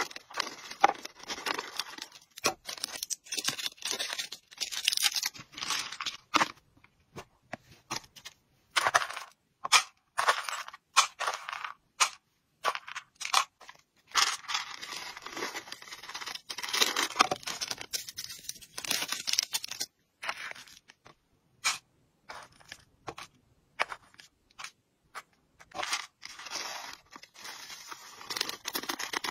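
Dry hamster treats and pellets rattling and clicking as they are poured and tipped into a clear plastic tub on a kitchen scale, with the crinkle and rustle of clear plastic bags being handled. It comes in uneven bursts of pouring and handling, with short quiet gaps between.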